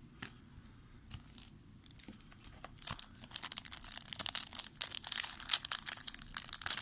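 Trading card pack wrapper being torn open by hand: a few faint ticks at first, then from about three seconds in a steady run of crinkling and tearing.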